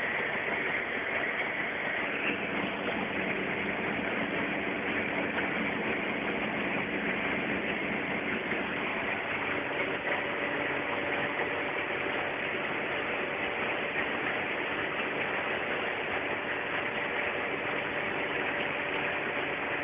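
Ikarus C42 microlight's engine and propeller droning steadily in level flight: a continuous rushing noise with faint engine tones underneath.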